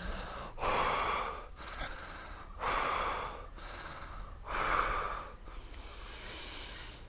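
A man taking three heavy, deep breaths about two seconds apart, each a rush of air through the mouth or nose, while he feels the effects of inhaled nitrous oxide and a sense of being short of oxygen.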